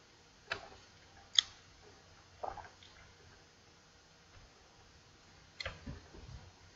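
Faint, sharp clicks of a computer mouse, two in the first second and a half, the second the loudest. A softer click follows a second later, and a short cluster of small, soft noises comes near the end.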